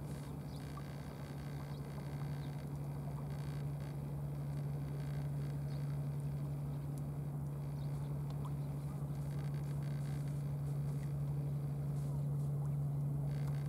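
An engine running steadily with a low, even hum that grows a little louder toward the end.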